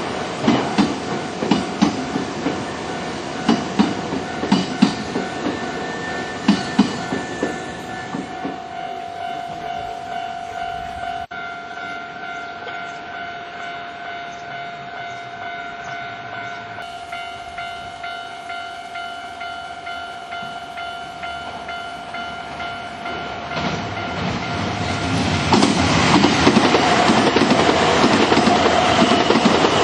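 An electric train passes a level crossing, its wheels clacking steadily over the rail joints, the clatter fading away over the first eight seconds. Meanwhile the crossing's warning bell keeps sounding with a steady ringing tone. About 25 seconds in, another train arrives and its running noise grows loud.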